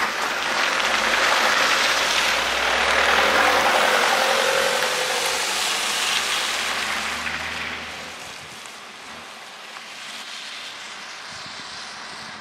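Panel van driving past on a wet, slushy road: tyre hiss and engine noise, loudest in the first few seconds, fading steadily as the van moves away.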